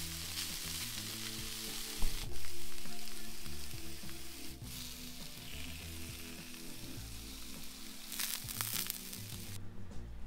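Diced chicken and quesadillas sizzling on a portable gas griddle as they are stirred and turned with a spatula. The sizzle cuts off suddenly about a second before the end. Background music plays underneath throughout.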